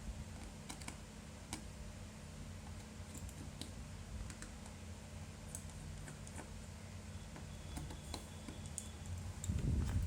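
Scattered light clicks and ticks of a small screwdriver working tiny screws out of a Google Pixel 3's internal frame, irregularly spaced, over a low steady hum.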